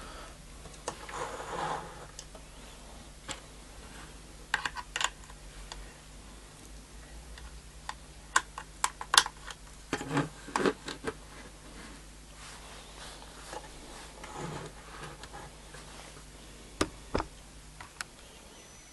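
Scattered clicks and light knocks of a handheld DSO 094 oscilloscope being handled, its buttons pressed and a probe cable fitted, some in quick clusters, over a faint steady low hum.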